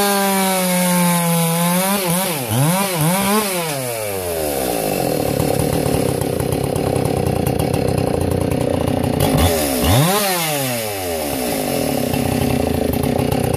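Husqvarna 576XP chainsaw, ported and fitted with a dual-port muffler and a limited (rev-limited) ignition coil, running at high revs for about two seconds, then revved up and down a few times and settling to idle. One more quick rev comes about ten seconds in, then it idles on.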